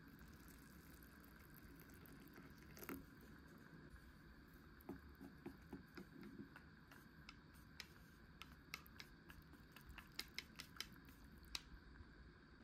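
Utensils and a food container being handled: a dozen or so small sharp clicks and taps, coming more often in the second half, over a faint steady room hiss.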